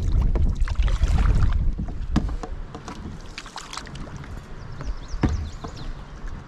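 A canoe being paddled: paddle strokes splashing and dripping in the water, with a few sharp knocks against the canoe. A low wind rumble on the microphone covers the first two seconds, then it goes quieter.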